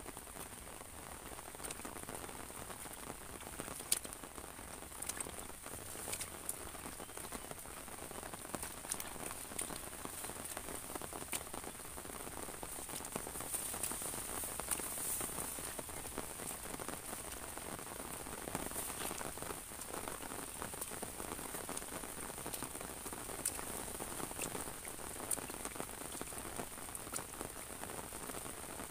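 Steady rain falling on an umbrella overhead and on a rice paddy: an even hiss with many sharp taps of drops striking the umbrella.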